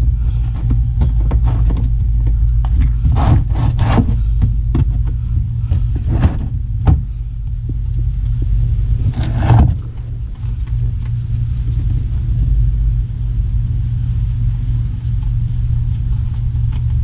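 Steady low rumble with scattered clicks, knocks and scrapes of a hand and tools working at a stuck oil filter under a car. The knocks come in a cluster a few seconds in and again about halfway through.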